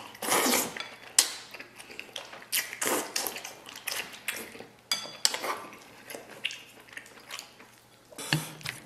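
Close-up eating: wet chewing and slurping of chewy braised pork tripe, with irregular clicks of chopsticks against a ceramic bowl.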